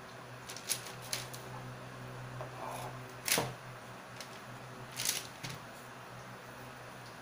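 Clear plastic sheet crinkling and crackling under hands that roll up strips of potato dough, in a few sharp crackles, the loudest about three seconds in, over a steady low hum.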